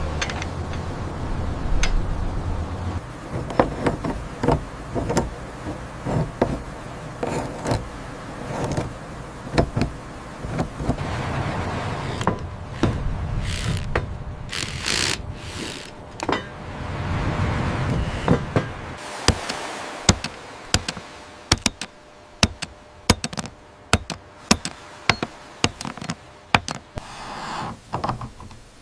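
A low steady rumble that stops about three seconds in, then a long run of irregular knocks and taps of hand repair work on the track and bridge, denser near the end.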